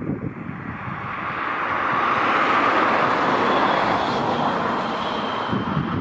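Massey Ferguson S8740 tractor running under load as it pulls a Massey Ferguson 2270XD large square baler through hay. The combined engine and baler noise swells to its loudest about halfway through, then eases off slightly.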